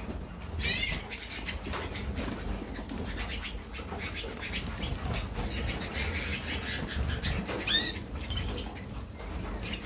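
Harzer Roller canaries in a flight cage: a couple of short chirps, about a second in and near the end, over wing flutters and small ticks from the flock.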